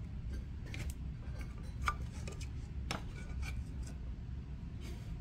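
A few sharp light clicks and knocks as a throwing bat is handled and lifted off the potter's wheel head, over a steady low hum.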